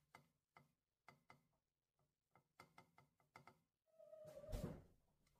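Quiet kitchen handling sounds while topping toast with cheese: faint, irregular light taps and clicks. About four seconds in comes a louder scraping rasp of about a second, with a brief falling squeak, as the plastic parmesan jar is handled.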